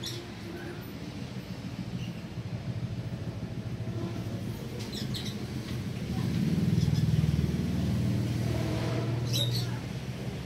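Low engine rumble of a motor vehicle, swelling louder about six seconds in and easing near the end, with a few light clicks.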